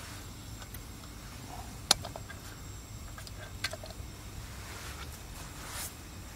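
Portable gas burner running steadily under a kettle, just lit by its piezo igniter, a low even rumble. Two sharp clicks, about two seconds in and again near the four-second mark.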